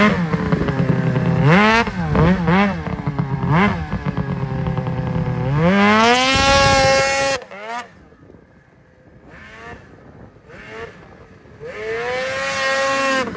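Snowmobile engine revving in short blips, then climbing in one long rev that cuts off suddenly about seven seconds in. After a quieter stretch it revs up again near the end.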